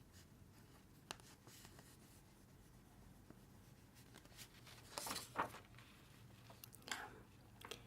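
Faint scratching of a pen writing on paper, with a few louder strokes about five and seven seconds in.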